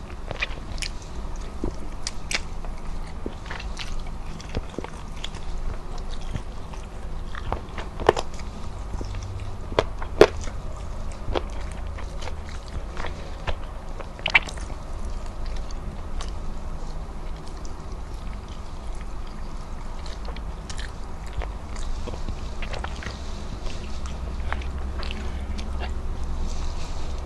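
Eating sounds: chewing and biting on chicken and rice eaten by hand, with many short sharp clicks and a few louder ones in the middle, over a steady low hum.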